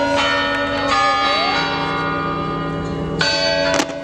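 Bell-like music: ringing, bell-toned chords struck just after the start and again about three seconds later, each sustained, with a sharp crack shortly before the end.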